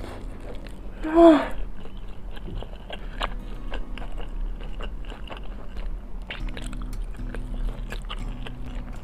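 A person biting into and chewing fried chicken, with many short crisp crunches, and a brief voiced sound from the eater about a second in, the loudest moment. Faint steady low tones run underneath.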